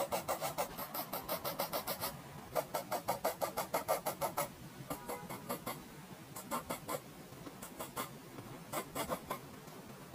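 Graphite pencil scratching across paper in quick back-and-forth hatching strokes, about six or seven a second. The strokes come in short runs with brief pauses between them, and the runs are shorter and fainter in the second half.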